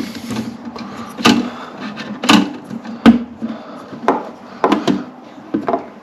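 Irregular knocks and clicks, about eight over a few seconds, as the plastic parts of a toilet cistern filling valve and its fitting are handled and pushed into place.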